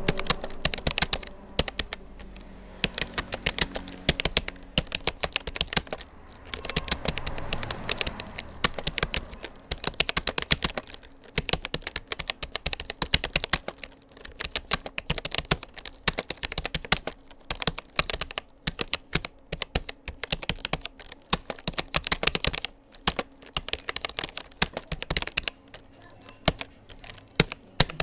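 Rapoo computer keyboard being typed on at a steady touch-typing pace: rapid, irregular key clicks with a few short pauses.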